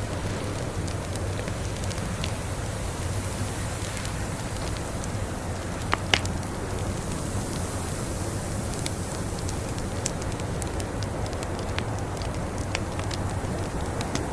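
Wood fire crackling: scattered sharp pops and ticks over a steady hiss, with two louder snaps about six seconds in.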